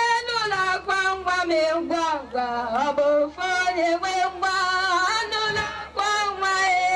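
A woman singing solo into a handheld microphone. She sings phrases of long, held notes with a wavering pitch, breaking briefly for breath between them.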